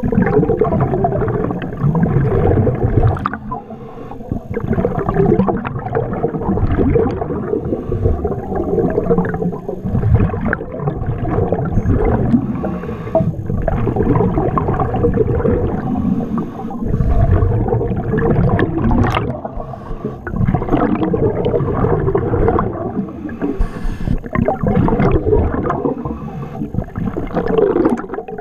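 Muffled water gurgling and bubbling through an underwater camera's housing while diving, loud and continuous with irregular swells.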